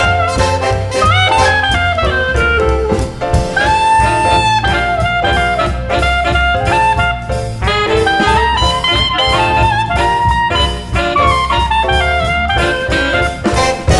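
Background jazz music: saxophone and brass lines over bass and a steady drum beat.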